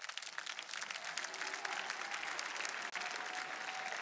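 A congregation applauding, many hands clapping at once in a dense, irregular patter.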